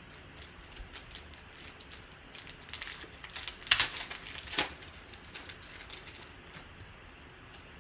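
Trading cards and their packaging being handled: a run of small crinkles and clicks, busiest from about two and a half to five seconds in, with two sharper snaps in the middle.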